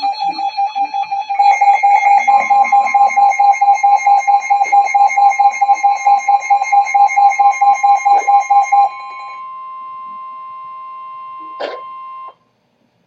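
Emergency Alert System alert tones: a loud electronic beep pulsing several times a second, with a steady higher tone joining about two seconds in. The pulsing stops about nine seconds in, and steady tones carry on until they cut off abruptly near the end, with a brief click just before.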